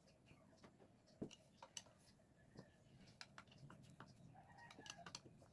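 Near silence, with faint scattered clicks and taps and a short faint bird call, like a chicken clucking, about five seconds in.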